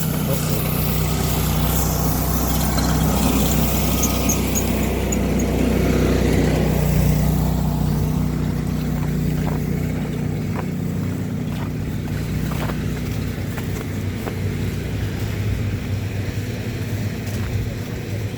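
A motor vehicle's engine running steadily, a low hum, with street noise over it and a few light clicks in the second half.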